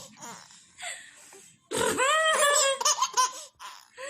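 High-pitched laughter: after a few soft breathy sounds, a rapid run of laughing 'ha' bursts lasting about a second and a half, starting just before halfway.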